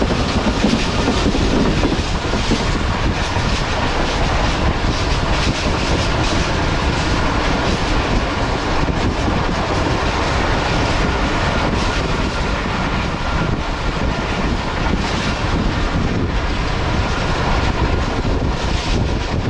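Passenger train running at speed, about 110 km/h, with the steady loud noise of its wheels on the rails.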